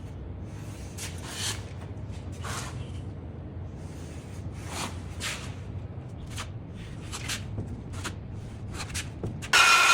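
Pencil scratching on drywall paper in a series of short strokes as circles are marked. Near the end a power tool starts up with a loud, steady high whine.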